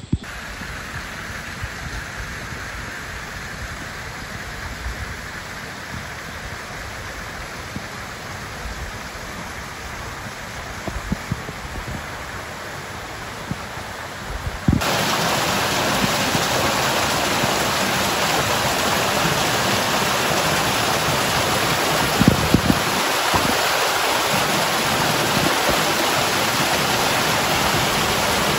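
Steady rush of water that jumps abruptly louder about halfway through, becoming the close, full splashing of a small mountain stream tumbling over rocks. A few soft knocks sound over it.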